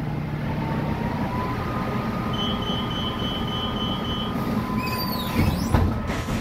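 Cabin sound of a Volvo B8RLE diesel city bus underway: steady engine and road rumble with a thin whine that rises slightly, then holds. A few knocks and a brief falling whine come near the end.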